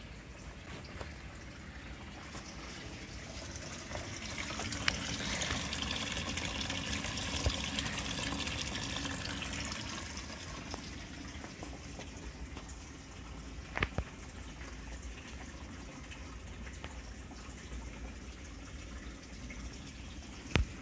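Water draining from a race car's ice-tank drain valve and splashing into a bucket below. The flow swells a few seconds in, runs strongest for several seconds, then eases. A few short sharp knocks come through it, two of them in the second half.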